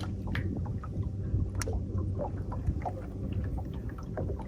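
A bass boat on the water: a steady low hum with the wash of water and wind, with a scattering of short sharp clicks.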